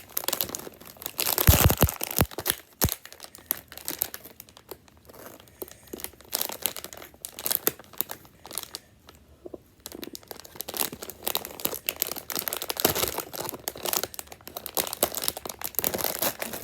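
Toy packaging crinkling and tearing as it is pulled open by hand, in irregular bursts with a few dull knocks about two seconds in.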